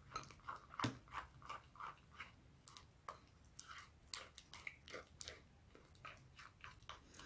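Glue-based slime being stirred in a ceramic bowl with a plastic spoon: faint, irregular sticky clicks and squelches, a few a second, as the mixture begins to come together.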